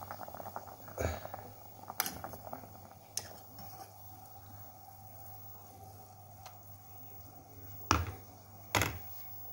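Water boiling in a steel pot, with a spoon knocking against the pot several times as a mushroom cap is turned over in the water; the two loudest knocks come near the end.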